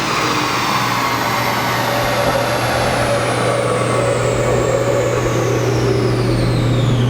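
BMW E92 M3's 4.0-litre V8 running steadily after a run on a chassis dyno, with a high whine falling slowly in pitch as the drivetrain and rollers wind down.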